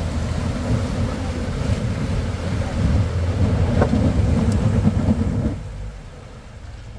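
A 4x4's engine running under load as it drives through a water crossing, with a rushing wash of water over a low, steady rumble. The sound drops away sharply about five and a half seconds in.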